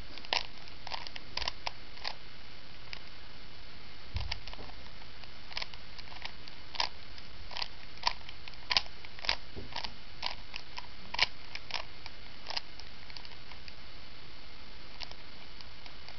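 Plastic Rubik's cube being turned by hand, its layers clicking in short irregular runs of turns with brief pauses between them.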